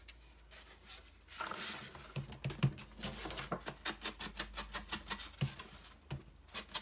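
Ink blending tool dabbed rapidly against paper edges and an ink pad to distress the paper: quick, sharp taps several times a second with light brushing, starting about a second and a half in.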